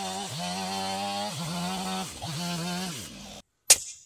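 Stihl two-stroke chainsaw running at high revs while cutting wood, easing off for a moment about three times, then cutting off abruptly. Near the end comes one sharp, loud crack: a hatchet striking a stick of kindling on a chopping block.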